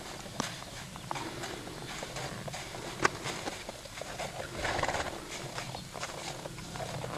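Paint horse walking in snow, its hooves crunching in an uneven run of footfalls. A sharp click stands out about three seconds in, and a brief breathy rush comes just before five seconds.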